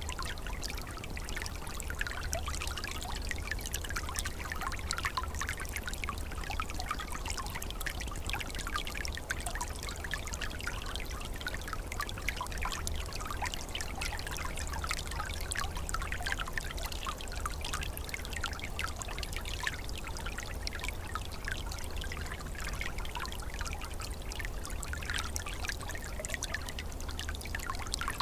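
Small forest stream flowing steadily in winter, water trickling and gurgling over stones. Dense little splashes and bubbles, with a steady low rumble underneath.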